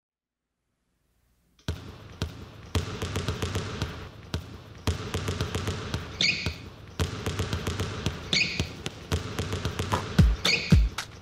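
Rhythmic basketball dribbling with sharp sneaker squeaks about every two seconds, making up the percussion intro of a song's backing track. It starts suddenly after about two seconds of silence, and deep thumps join near the end.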